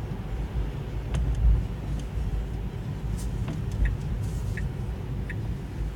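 Low, steady road and tyre rumble inside the cabin of a Tesla Model 3 electric car driving at city speed, with a few faint clicks and ticks.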